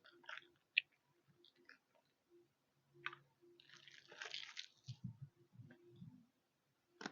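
A power adapter's packaging being opened by hand: faint clicks and taps, with a second or so of rustling about four seconds in and a few soft knocks after it.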